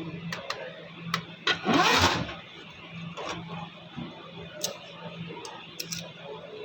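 Scattered clicks and knocks, as of plastic printer parts being handled, with one louder rushing burst about a second and a half in that lasts under a second.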